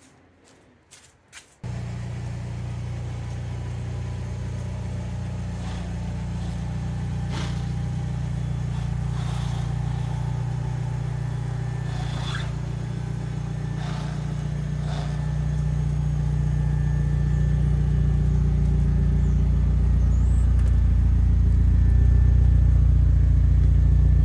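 VW Beetle's engine running steadily as the car pulls slowly out of the garage under its own power. It comes in suddenly about one and a half seconds in and grows louder toward the end.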